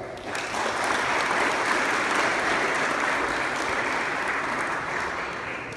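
Audience applauding: a dense patter of many hands clapping that starts about a third of a second in, holds steady and dies away near the end.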